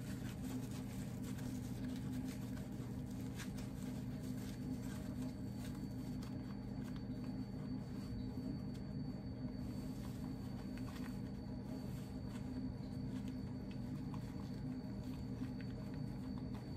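Steady low electrical or ventilation hum of a small room, with faint scattered crinkles and rustles of a paper towel being handled and rolled up.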